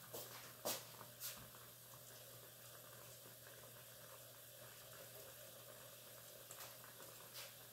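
Faint simmering of chicken in broth in a glass-lidded frying pan, with a few soft pops.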